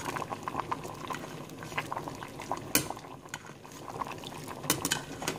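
Coconut-milk sauce bubbling at a simmer in a stainless steel pot, as a metal ladle scoops it up and pours it back over the fish. Small ticks and a few sharper clinks of the ladle against the pot, one about three seconds in and another near the end.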